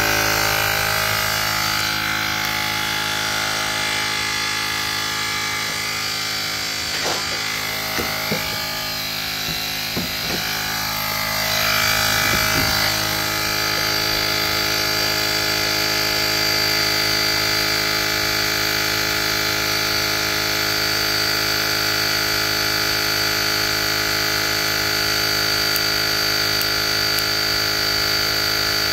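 Portable digital air compressor (JM-8817) running steadily as it pumps up a car tyre, its small motor buzzing with a steady high whine. A few faint knocks come around the middle.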